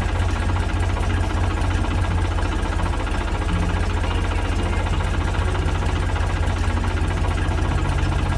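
A small engine idling steadily with an even, fast pulsing beat.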